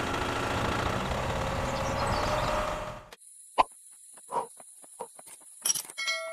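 Small electric motor of a handmade toy tractor running steadily, cutting off about three seconds in. Then a few light taps and clicks as a rope tow hook is handled, and a short subscribe-button chime sound effect near the end.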